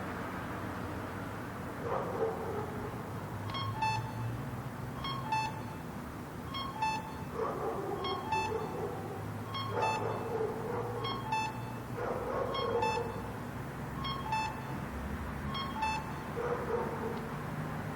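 Pedestrian traffic-light signal beeping, two quick tones at a time, repeating about every second and a half from about three and a half seconds in until about sixteen seconds. Steady street traffic runs underneath, and a few shorter, lower-pitched sounds come and go among the beeps.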